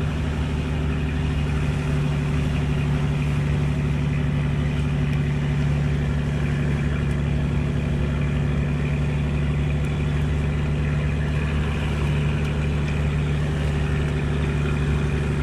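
A fishing boat's engine running steadily: a deep, even hum that holds at one pitch.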